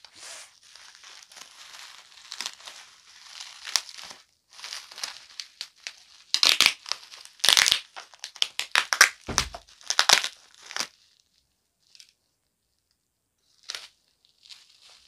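Plastic bubble wrap crinkling and tearing as hands pull it open from a box, in a run of uneven rustling bursts. The loudest bursts come about six to eleven seconds in, then it goes mostly quiet with one short rustle near the end.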